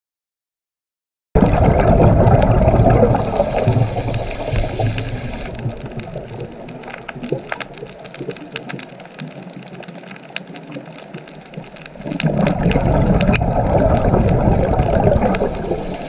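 Rushing, bubbling underwater water noise with scattered small clicks. It starts abruptly about a second in, eases off in the middle and swells loud again near the end.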